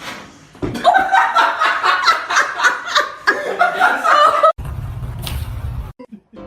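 A person laughing hard in rapid, high-pitched pulses for about four seconds, followed by a brief low rumble.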